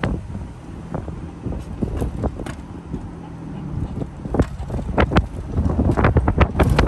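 Wind buffeting the microphone over the low rumble of a pontoon boat being towed on its trailer along an unpaved road. Sharp pops and knocks come more often and louder in the second half.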